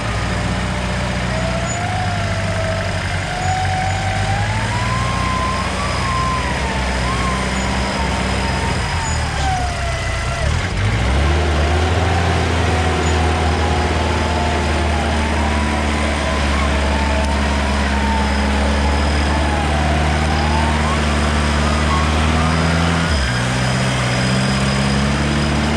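Off-road vehicle engine running steadily on a rough trail, its pitch shifting up and down a few times, with a high whine that rises and falls over it.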